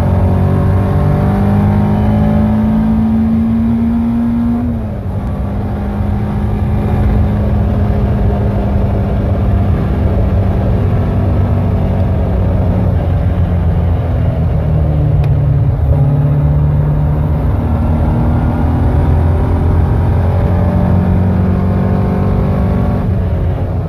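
Caterham R400's four-cylinder engine running hard at speed on track, with wind noise from the open cockpit. About five seconds in, the engine note drops once and the level eases briefly, then holds steady again.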